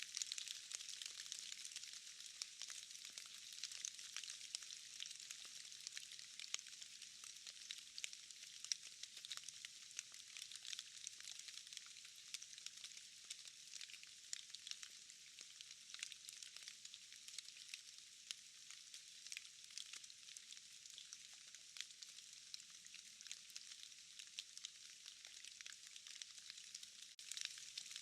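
Faint, steady rain patter in a forest: a dense hiss of drops falling from trees and moss, full of tiny ticks.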